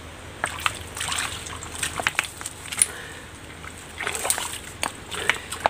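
Hands splashing and sloshing in shallow creek water and shifting loose stones while feeling for crabs, in irregular bursts of splashes and small knocks.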